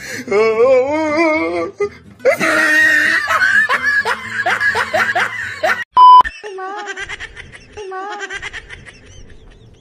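Several bursts of hearty laughter, with a loud short beep about six seconds in, followed by fainter laughing.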